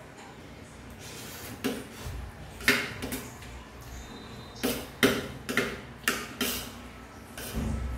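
Fork clicking and scraping against a plate during a meal: a run of irregular sharp clicks, with a dull low bump near the end.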